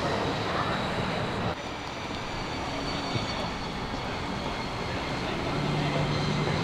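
Jet engine of a USAF Thunderbirds F-16 Fighting Falcon running at low power during its landing rollout on the runway: a steady rush with a high whine over it. The level drops abruptly about a second and a half in.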